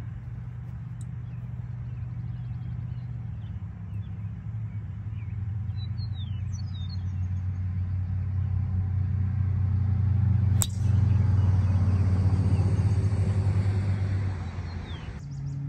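Golf cart driving, its motor running in a steady low hum that grows louder, then eases off about a second before the end. A few short bird chirps come about six seconds in, and a single sharp click about two-thirds of the way through.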